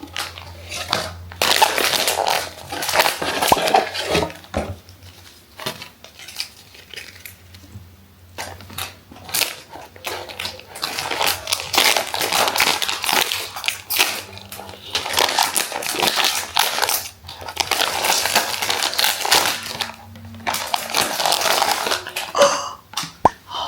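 Packaging being handled and unwrapped: bursts of crinkling paper or plastic with many sharp crackles and occasional light knocks, broken by a few quieter pauses.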